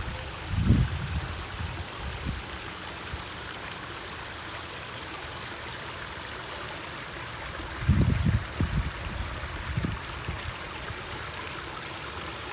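Water running steadily down a backyard-style pond-less waterfall and meandering stream, a constant splashing trickle. A few low rumbling bumps break in about half a second in and again around eight to ten seconds in.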